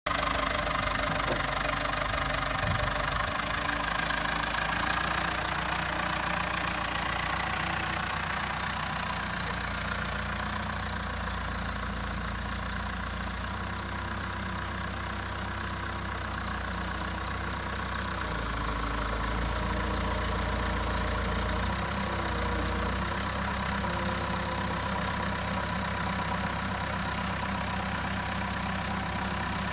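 Engine of a 1985 Kalmar DB 4-500 four-tonne forklift running steadily as the truck is driven about, its low rumble swelling for a few seconds past the middle.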